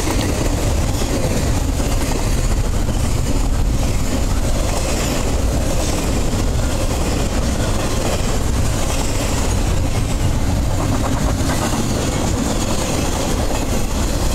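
Double-stack container well cars and trailer-carrying flatcars of a freight train rolling past, a loud, steady noise of steel wheels running on the rails.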